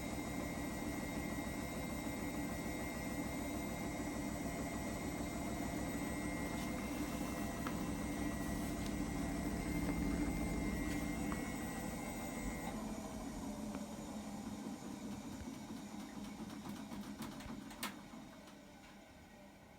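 Hotpoint washing machine running, a steady drum-and-motor hum with a high whine. The whine stops about two-thirds of the way through and the machine runs down and fades, with a single click near the end.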